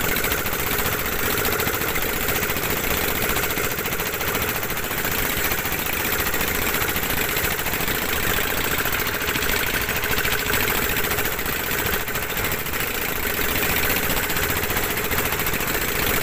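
Fishing boat's open inboard engine running steadily close by as the boat travels.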